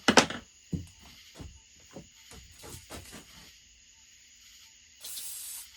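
Tools knocking and tapping on the chainsaw's cylinder while its bolt holes are cleaned out: one sharp knock, a second under a second later, then a run of lighter taps. Near the end comes a short hissing burst of spray blown into the bolt holes.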